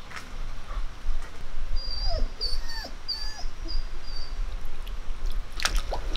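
Urad dal grains tipped into a granite mortar with a light rattle, ending in a cluster of sharp clicks as the stone pestle moves. Midway there are a few short whimpering calls, some falling in pitch, from an animal.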